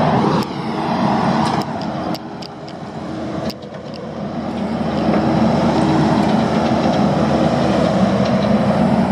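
Diesel engine of heavy construction equipment running, with several sharp metallic knocks in the first few seconds; it grows louder from about four seconds in and holds steady.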